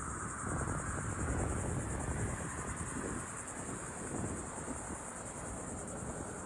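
Steady outdoor ambience: a high-pitched, evenly pulsing chirr over a continuous low rumble and hiss.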